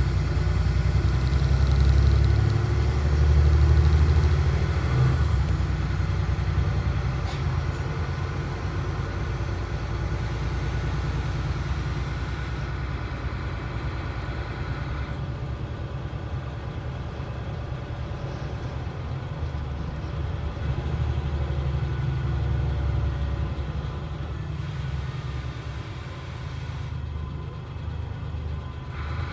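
DAF SB4000/Jonckheere diesel bus under way, heard from inside the passenger cabin: a steady low engine and road rumble. It is louder in the first few seconds and then eases off.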